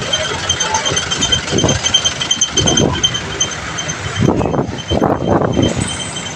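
Street traffic heard while riding along a busy street: vehicle engines running, with a faint high repeating chirp through the first four seconds and louder low rumbling bursts from about four seconds in.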